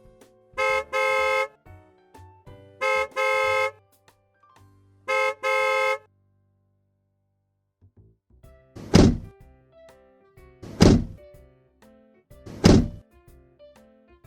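Car horn sounding three times, each a short beep followed straight away by a longer honk. Then, after a pause, a car door slammed shut three times about two seconds apart, over faint background music.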